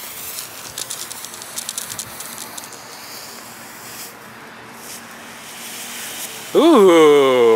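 TNT Shark Thrasher ground fountain firework spraying sparks with a steady hiss and light crackle. About six and a half seconds in, a loud sliding tone that ends falling in pitch lasts about a second.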